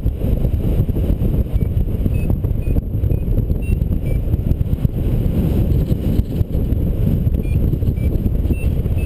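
Airflow rushing over the microphone of a paraglider in flight, with a variometer giving short high beeps about two a second, stepping up and down in pitch, for a couple of seconds and again near the end: the climb tone that signals the glider is rising in lift.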